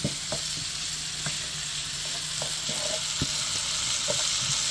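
Diced onion and red bell pepper sizzling in oil in a pan over high heat as they soften, with a wooden spoon scraping and knocking against the pan at irregular moments as they are stirred.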